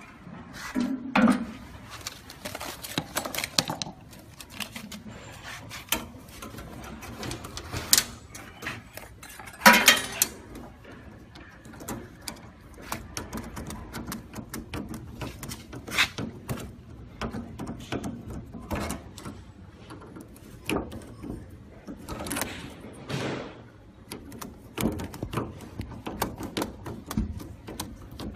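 Handling noise from fitting an exhaust blower and its aluminium foil flexible duct: scattered clicks, knocks and rustles, the loudest knocks about 1, 8 and 10 seconds in.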